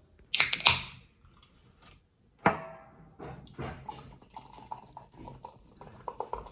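Can of sparkling water cracked open with a short hiss about half a second in. A sharp clink with a brief ring follows about two and a half seconds in, then small liquid and dish sounds.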